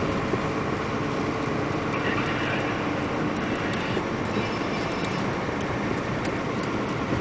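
Steady engine and road noise inside the cab of a UD Trucks Quon diesel truck driving along, with occasional short rattles.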